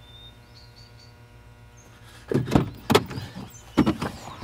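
A car's front passenger door being opened and a man climbing into the seat: a burst of clunks and thumps begins about halfway through and goes on to the end. Before it there is only a low background with a few faint bird chirps.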